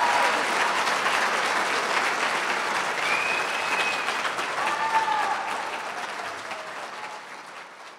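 Audience applauding: dense, even clapping from a large crowd, fading out over the last two seconds.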